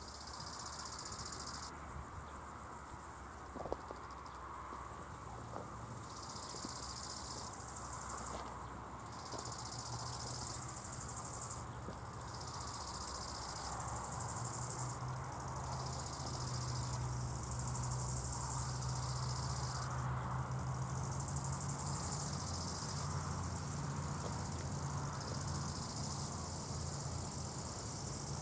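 An AŽD 71 level-crossing warning bell rings steadily while the crossing is closed for an approaching train. Loud high-pitched insect chirping comes and goes in bursts of a second or two over it. A low hum builds from about a third of the way in.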